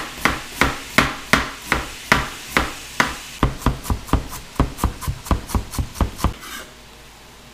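Chef's knife chopping fresh ginger on a plastic cutting board: sharp knife strikes at about two or three a second, quickening to about five a second some three and a half seconds in, then stopping shortly before the end.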